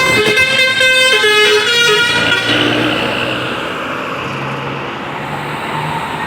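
Basuri 'telolet' musical bus horn playing a quick run of stepped notes for about two seconds, then cutting off. After it come engine and road noise.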